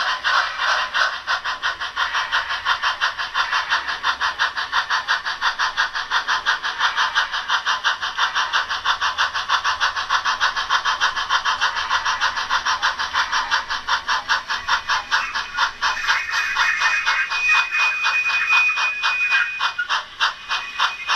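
SoundTraxx Tsunami sound decoder in a Bachmann On30 model steam locomotive playing fast, even steam chuffs through its small onboard speaker as the train runs. A thin, high steady tone joins about three quarters of the way through.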